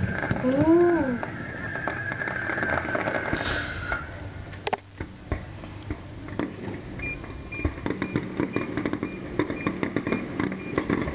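Distant fireworks popping and crackling, with many sharp pops through the second half. About a second in, a brief voice-like sound rises and falls in pitch and is the loudest thing. A high steady tone fades out by about four seconds, and from about seven seconds a faint regular beep repeats under the pops.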